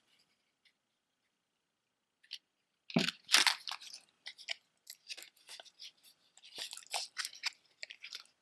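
Costume earrings being handled: quiet at first, then a clatter about three seconds in, followed by a run of small clicks and rustles.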